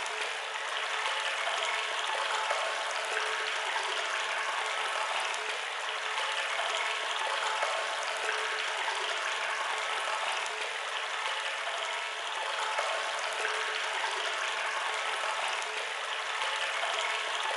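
Steady rush of water pouring into a pump-station sump as it fills, an even hiss with no low rumble.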